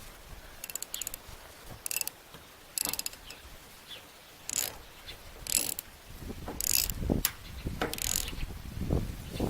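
Ratchet wrench clicking in short runs, about one run a second, as a nut on the wheelbarrow's axle is worked back and forth.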